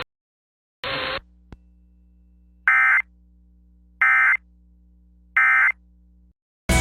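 Three short bursts of Emergency Alert System data tones, the end-of-message signal that closes a broadcast alert, about a second apart, after a brief blip of radio static, over a faint low hum.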